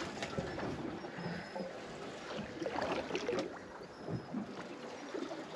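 Water lapping against the side of a drifting boat, a steady wash with a few faint clicks of tackle being handled.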